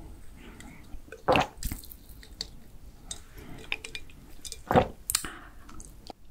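Close-miked drinking from a glass pitcher through a straw: wet sipping and swallowing sounds with small drips and clicks. Two louder sounds come about a second and a half in and again near five seconds.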